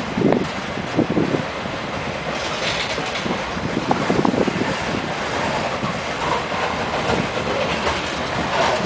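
Freight train cars rolling past close by: steady wheel-on-rail noise with irregular clicks and clanks as the wheels pass over the rail joints.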